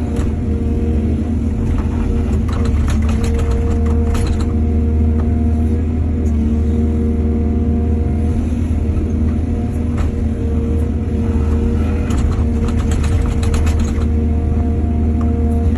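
Heavy excavator diesel engine running steadily under load, with two spells of clattering, a few seconds in and again about three-quarters of the way through.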